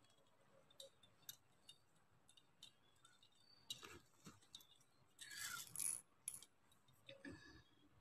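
Faint, scattered clicks and rattles of plastic pearl and glass-like beads knocking together as a beaded piece is handled and beads are picked up on a wire, with a brief rustle a little past the middle.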